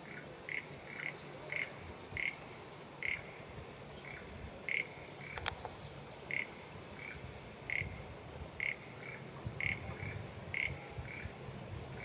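A series of short animal calls, repeated irregularly about one or two a second, with a single sharp click about five and a half seconds in.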